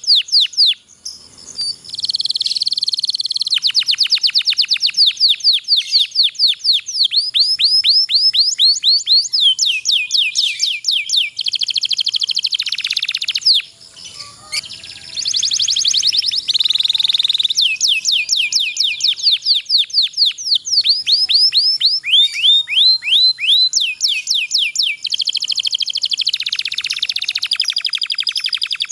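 Domestic canary singing long rolling trills: fast runs of repeated high notes, each falling in pitch, with short breaks about a second in and around halfway.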